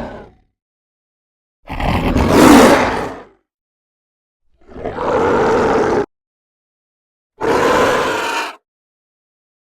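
Angry demon roar sound effects: the end of one roar, then three separate roars of a second or two each, with dead silence between them.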